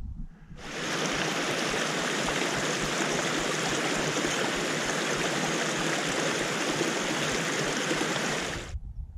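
Shallow moorland stream rushing over smooth rock slabs: a steady rush of water that cuts in sharply about half a second in and cuts out just before the end.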